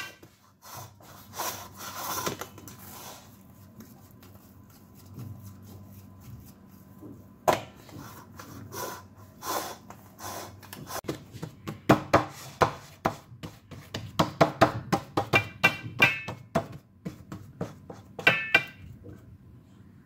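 Hands pressing and flattening pizza dough into a stainless steel pan: rubbing with quick taps and knocks against the metal, sparse at first and coming thick and fast in the second half, with a couple of brief squeaks.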